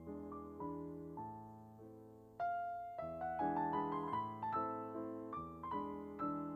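Background piano music: single notes and chords struck and fading, growing louder about two and a half seconds in.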